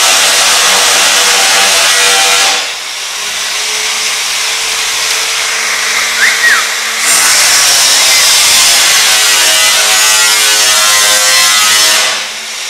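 Loud, steady machine noise with a faint hum of evenly spaced tones running through it. It eases off for a few seconds about three seconds in and dips again near the end.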